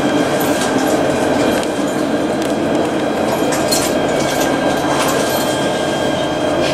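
Alstom Citadis tram running on street track, heard from inside at the front: a steady rumble of wheels and traction gear with a faint steady whine above it and a few light clicks.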